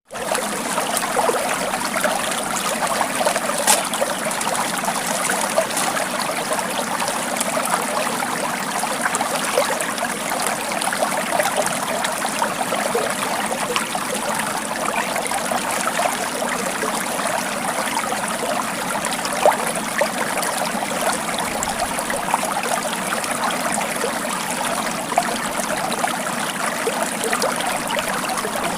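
Water of a small stream flowing and trickling over stones: a steady babble.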